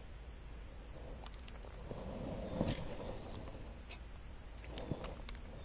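Faint pops of a Rebel Pop-R topwater popper lure jerked across the water surface, the loudest about two and a half seconds in and a smaller one near the end. A steady high insect buzz runs underneath.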